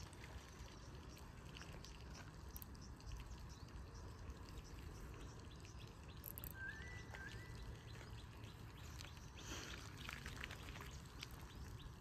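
Quiet open-air ambience with a low steady rumble, in which a bird gives two short rising chirps about halfway through; a brief rustling sound follows near the end.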